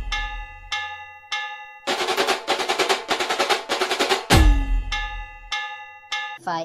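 Percussive music: a fast snare drum roll ending on a deep boom that drops in pitch, followed by a few ringing bell-like notes, the whole pattern played twice. The roll starts again about two seconds in, and the second boom comes just past four seconds.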